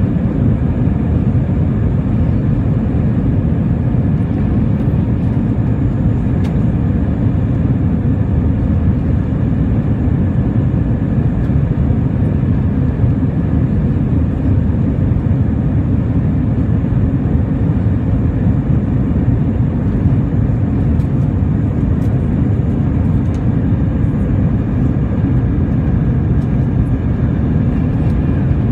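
Steady cabin noise of an Airbus A320 climbing out: a deep, even rumble from its two IAE V2500 turbofan engines and the airflow over the fuselage, heard from inside the cabin beside the wing.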